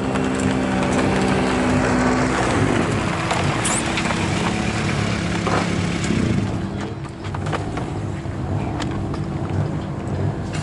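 A motor running steadily, its pitch stepping down about a quarter of the way through and the sound easing about two-thirds through, with a few sharp knocks near the end.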